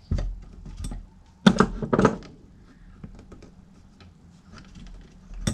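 Metal clunks and light clicks of air-compressor fittings being handled and worked loose by hand. There is a knock at the start, two louder knocks about a second and a half and two seconds in, and scattered small ticks between.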